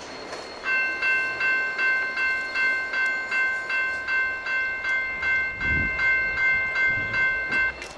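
A railroad bell ringing at an even pace, about two and a half strokes a second, starting about a second in and stopping just before the end.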